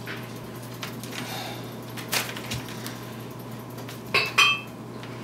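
Light clicks, then two sharp clinks in quick succession near the end with a short ring: small hard parts and tools being handled while a laptop is reassembled. A steady low hum runs underneath.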